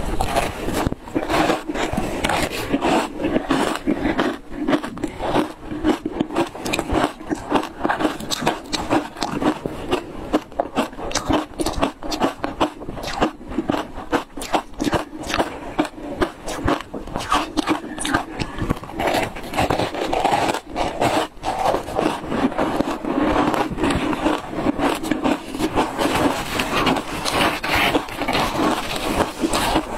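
Crunching and chewing of shaved ice coated in matcha powder: a dense, irregular run of crisp crunches and crackles as the ice is bitten and ground between the teeth.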